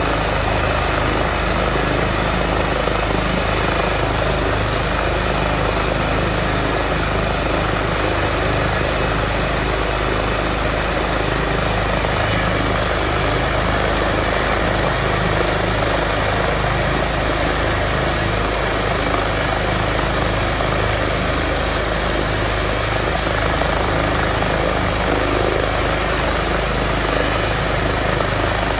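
Airbus H145 rescue helicopter's twin turboshaft engines and rotor running steadily on the ground with the rotor turning, a continuous loud rotor and turbine noise with a steady high-pitched whine on top.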